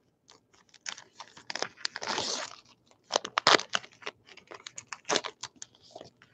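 A 2019 Allen & Ginter baseball card pack's crimped wrapper being crinkled and torn open by hand: a run of sharp crackles, with a longer tear about two seconds in, then the cards rustling as they are pulled out.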